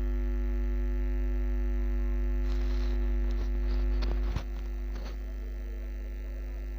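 Steady electrical mains hum, with faint rustling and light clicks of yarn being worked by hand. A sharper click comes a little past the middle, after which the hum is slightly quieter.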